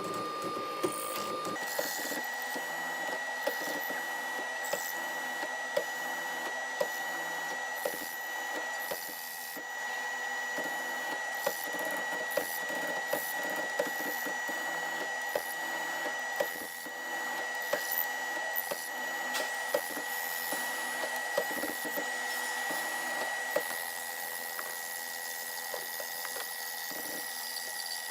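Small electric power tool running steadily with a high whine that steps up in pitch about a second and a half in, with irregular sharp clicks throughout.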